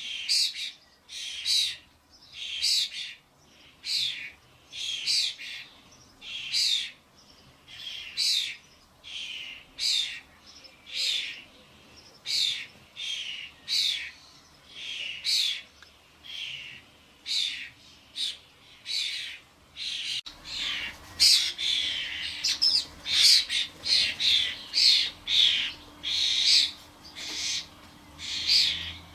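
Common starling fledglings at a feeder giving harsh, repeated begging calls, about one a second. About two-thirds of the way through, the calls grow louder and crowd together as more birds join in.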